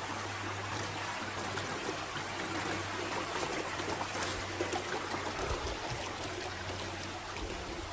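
Stream water flowing steadily over rocks.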